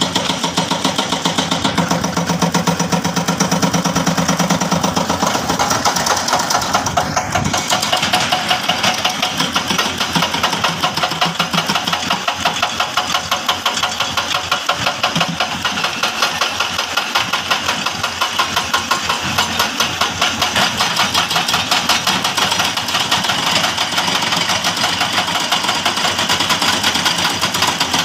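Diesel engine of a heavy construction machine, excavator or dump truck, running continuously with a fast, even pulsing. The engine is heavier and lower for a few seconds near the start.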